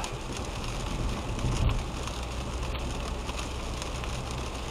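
Rain hitting the windshield and tyres on a wet road while a car drives, heard from inside the cabin with a steady low road rumble. There is a single low thump about a second and a half in.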